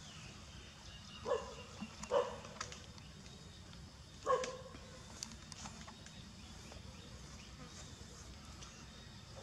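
Three short animal calls, two about a second apart early on and a third about two seconds later, over faint steady outdoor background noise.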